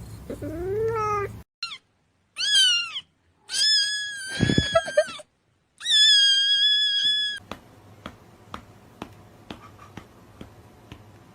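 Cat meowing about five times, some short and two long, high drawn-out meows, with a low thud during one of them. It is followed by faint regular clicking about twice a second over a low hum.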